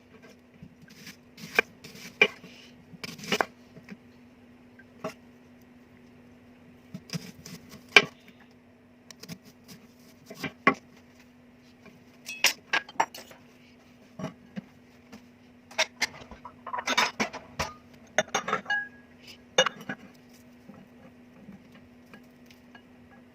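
Kitchen utensils and dishes knocking and clinking: scattered sharp clinks of cutlery against crockery and glass, with a busier run of rattling about three-quarters of the way through. A faint steady low hum lies underneath.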